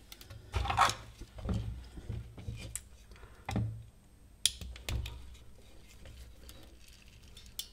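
Wire strippers and fan wires being handled on a workbench: a series of separate clicks, a short scrape and light knocks as the tool is set on the wire insulation.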